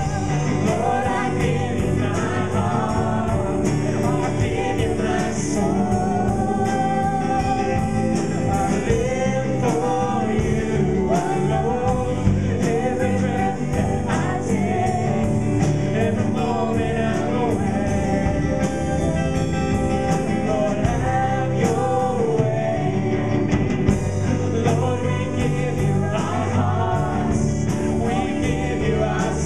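Live worship band playing a gospel song: a woman sings lead into a microphone over keyboard, drum kit and electric guitar, with a steady drum beat.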